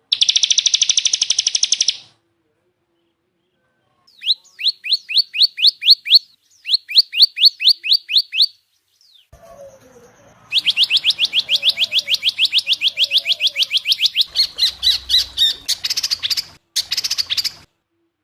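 Songbird song from a spliced training ('masteran') recording. It opens with a fast trill, then comes a run of quick rising whistled notes, about four a second. After a short gap, a long rapid trill of rising notes starts, with abrupt cuts between the passages.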